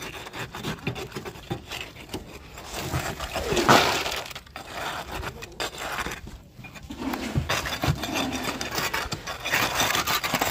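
Irregular scraping and knocking as wet concrete is worked by hand and trowel into a steel rebar cage in a wooden form, the loudest scrape a little under four seconds in.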